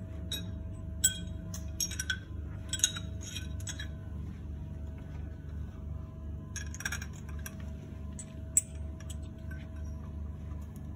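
Light metallic clinks and clicks as a propeller blade's geared root is handled and fitted into the hub, a few scattered knocks with the sharpest about eight and a half seconds in. A steady low hum runs underneath.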